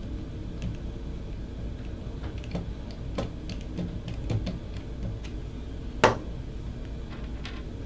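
Scattered faint clicks and taps of small parts being handled as body clamps and Phillips screws are fitted to an industrial joystick's contact block, with one sharper click about six seconds in, over a steady low hum.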